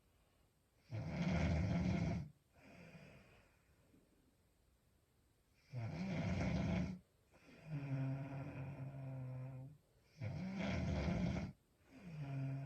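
A woman snoring in her sleep. Three loud, rough snores, each about a second long and four to five seconds apart, each followed by a quieter, steady, pitched breath.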